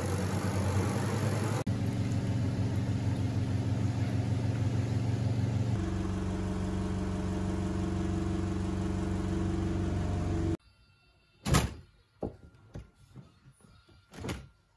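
Samsung SWT50B1 twin-tub washing machine's wash motor running, its pulsator churning soapy water with a steady hum. The hum cuts off abruptly about ten seconds in, and a few short sharp knocks follow.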